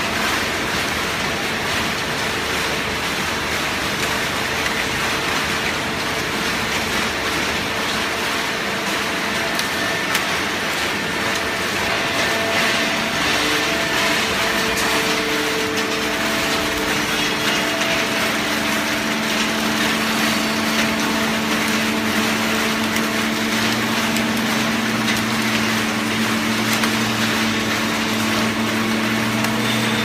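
A 100-ton hydraulic waste-paper baler running, with steady machinery noise from its drive. A humming tone sets in a little past halfway, and a deeper hum joins near the end.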